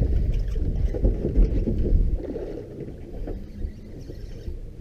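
Low rumble of wind buffeting the microphone with water washing against a fibreglass boat hull, easing off after about two seconds.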